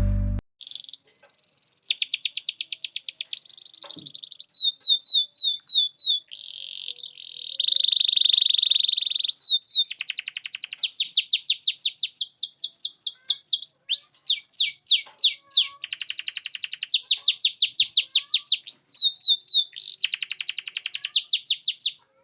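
Canary singing a long song of fast rolling trills, repeated sweeping notes and short held phrases, changing every second or two with brief pauses between.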